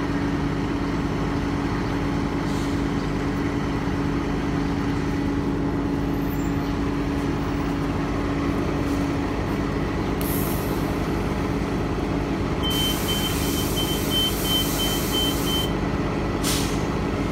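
WMATA Metrobus engine running as the bus pulls up to the stop. About ten seconds in comes a short air hiss, then about three seconds of air hissing with rapid beeping, about three beeps a second, and one more brief hiss near the end.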